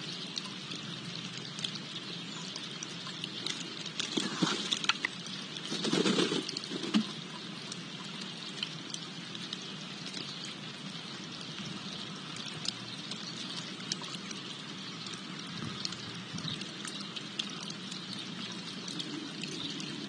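Steady trickling and splashing of water from a small bird-bath fountain, with scattered light ticks throughout. About four to seven seconds in, a few louder, brief noisy bursts stand out.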